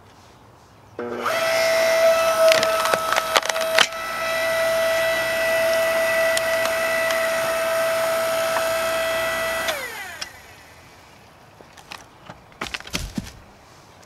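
A 5-ton electric hydraulic log splitter's motor and pump start about a second in and run with a steady whine while the ram pushes into a log. The wood cracks and splits a few times with a loud crack near the 4-second mark. The motor cuts off near the end with its whine falling in pitch, followed by a few knocks.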